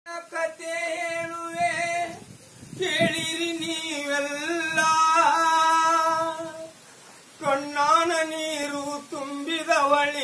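A solo singer holding long, wavering notes in three drawn-out phrases of a North Karnataka janapada (folk) song.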